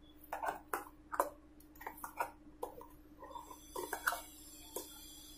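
Kitchen utensils being handled: about a dozen light, irregular clicks and knocks, with a faint hiss over the last two seconds.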